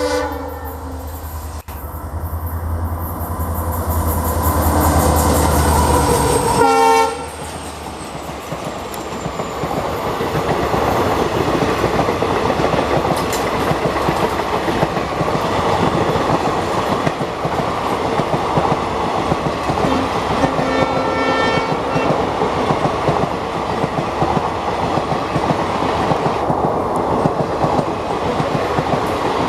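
Diesel locomotive passing close by at speed, its engine's deep rumble building and then cutting off sharply about seven seconds in as it goes past. Short horn blasts sound near the start and at the pass. After that the coaches roll by with a steady rush, and another horn sounds about twenty seconds in.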